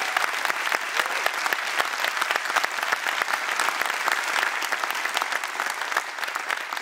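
Audience applauding: many hands clapping steadily in a dense patter.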